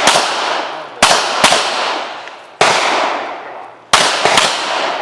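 Pistol gunfire: about six shots at uneven spacing, two of them in quick pairs, each followed by a long trailing echo.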